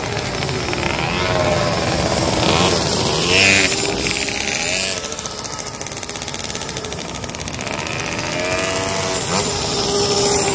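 Pocket bike's small engine buzzing as it laps and corners, its revs rising and falling, with pitch swoops as it sweeps past about three seconds in and again near nine seconds.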